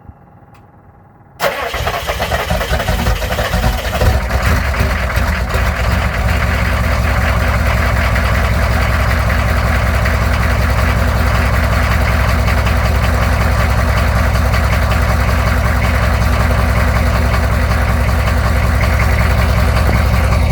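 1997 Chevy Suburban's 6.5 L Detroit Diesel V8 cold-starting: it fires about a second and a half in, runs unevenly for a few seconds, then settles into a steady diesel idle.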